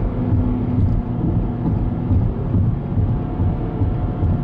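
Steady road noise inside a moving car's cabin: a low tyre and engine rumble at highway speed.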